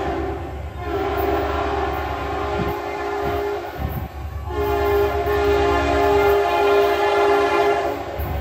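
Diesel locomotive horn on a pair of Norfolk Southern SD40-2s sounding a chord in long blasts. One blast ends just under a second in, then come two long blasts of about three seconds each with a short break between them, over a low rumble.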